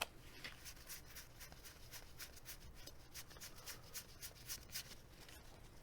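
Cardboard trading cards being slid off a stack one after another: a faint, uneven run of soft ticks and rubs, about four a second, with a slightly sharper click at the start.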